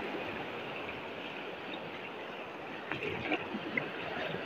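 Shallow surf washing around the feet, a steady rushing with a few small splashes about three seconds in.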